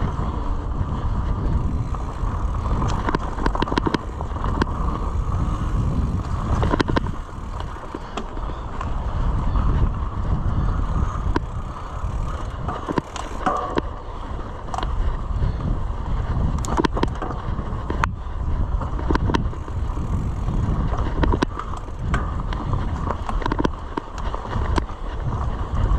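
Mountain bike ridden along a dirt trail: a steady rumble of wind on the microphone and tyres on the ground, with many sharp clicks and rattles as the bike jolts over bumps.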